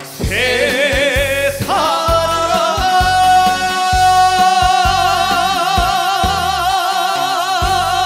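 Male trot singer holding the song's long final note with heavy vibrato, rising into it in the first couple of seconds. Under him runs a trot band backing with a steady drum beat.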